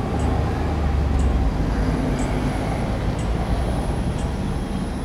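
Steady low rumble of street traffic, loudest for the first second or so and then even, with faint regular ticks about once a second.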